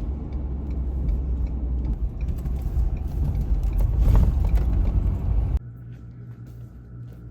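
Low road and engine rumble inside a moving vehicle, swelling briefly, then cutting off abruptly about five and a half seconds in. It gives way to a quieter steady hum with a faint high tone.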